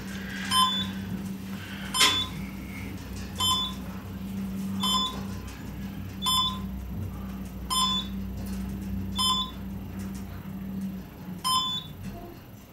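Schindler-modernized elevator descending: a short electronic beep each time the car passes a floor, about every second and a half, over the steady hum of the drive motor. The hum stops about eleven seconds in as the car reaches the lobby, with one last beep.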